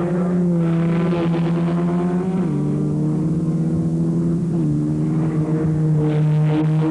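Single-seater racing car engines running hard as the cars pass through a corner. The engine note drops in two steps partway through, with louder rushes as cars come close.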